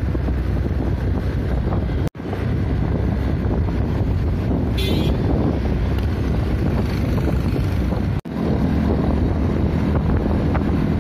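Heavy wind buffeting the microphone of a moving vehicle, a loud steady low rumble. The sound drops out for an instant twice.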